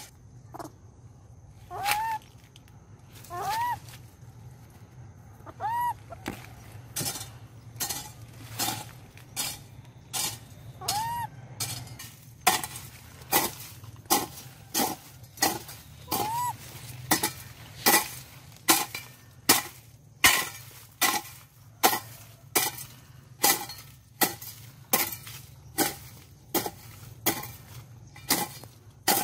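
Hoe chopping into the soil while weeding: steady, regular strikes, sparser at first, then about one and a half a second and louder from about twelve seconds in. A few short rising-and-falling chirps come in the first half.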